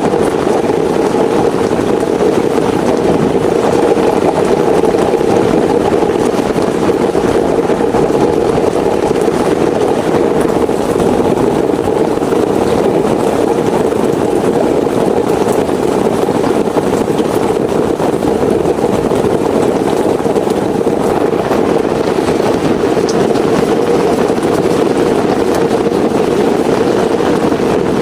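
Heavy rain falling steadily, a dense, even rush that does not let up.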